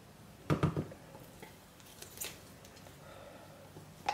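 Handling noise from a plastic measuring jug worked in gloved hands: a quick cluster of light knocks about half a second in, a fainter tap later and a sharp click near the end.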